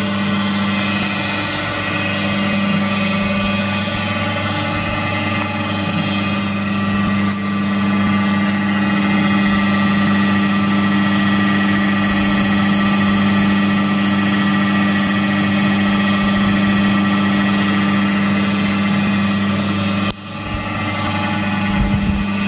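Manure-processing fermentation machine running, its motor turning a spiral mixing blade through chicken manure: a steady mechanical hum with a brief drop about twenty seconds in.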